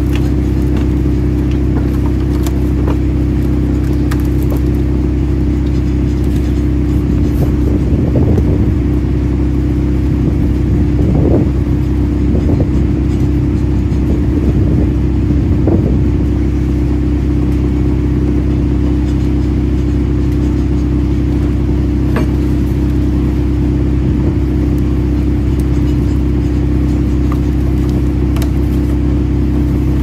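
Chipping plant machinery running with a steady, even drone. Between about 8 and 16 seconds, bark-covered sawmill offcut slabs shift and scrape on the steel chain-conveyor floor in several short bursts.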